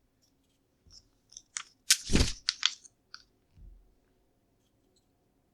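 Plastic LEGO bricks clicking and rattling as pieces are handled and pressed together, with a quick cluster of clicks and rattle about two seconds in and a soft thump a little later.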